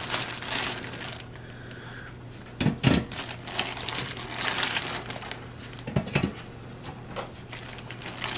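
Crinkling of plastic food packaging while frozen pretzel sticks are handled, with two louder knocks, about three and six seconds in, as they are set into the air fryer basket.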